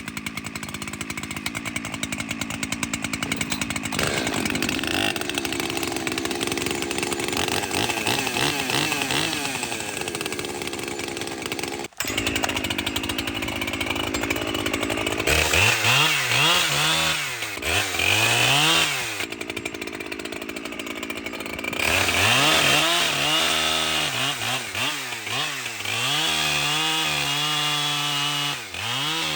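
Ported Echo CS-620P two-stroke chainsaw idling, then revving up. After a sharp break about twelve seconds in, the revs swing up and down several times and then run high and uneven.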